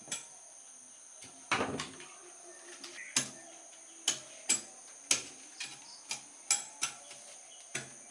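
Hooked metal knife scraping the outer bark off a fresh cinnamon stick in short, sharp strokes. The strokes are sparse at first, with one heavier stroke about a second and a half in, then come about two a second.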